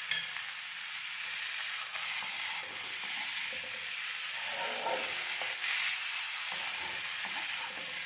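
Chopped vegetables (peas, onion, carrot, green chillies) sizzling in oil in a wok, a steady hiss, while a slotted steel spatula stirs them and scrapes against the pan in irregular strokes.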